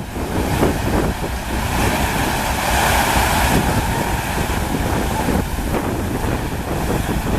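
Steady rush of water from a FlowRider surf simulator's pumped sheet wave, with wind buffeting the microphone. The rushing hiss swells for about a second a few seconds in.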